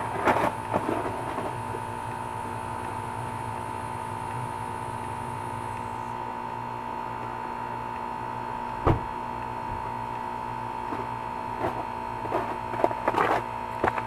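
A 2004 Carrier 3-ton heat pump's outdoor unit running in defrost mode, a steady compressor hum with a constant whine. There is a single thump about nine seconds in, and a few light knocks near the start and near the end.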